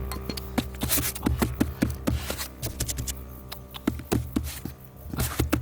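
Irregular taps and knocks with some scraping, as wooden sticks are handled and worked by hand to build a trap, over a steady low hum.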